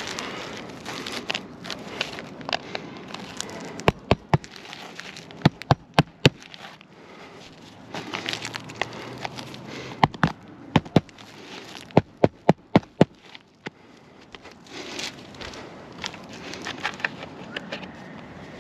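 Hammer blows driving roofing nails into asphalt shingles, in quick groups of two to five strikes. Between them the shingles crackle and scrape as they are lifted and handled.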